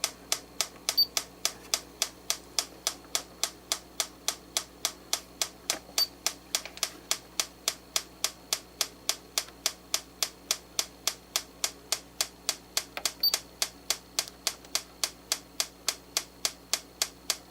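Franz FB-4 electric metronome ticking fast and evenly at 208 beats per minute, about three and a half sharp clicks a second, over a faint steady hum.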